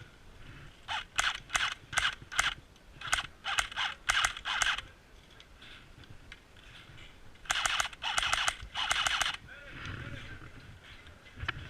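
Airsoft guns firing: a string of quick sharp shots over the first few seconds, then two short bursts of rapid fire about two-thirds of the way through.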